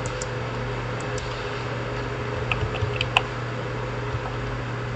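A few short computer keyboard clicks, mostly about two and a half to three seconds in, over a steady low hum.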